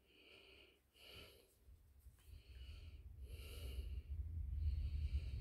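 A person breathing quietly, about five soft breaths roughly a second apart, under a low rumble that grows through the second half.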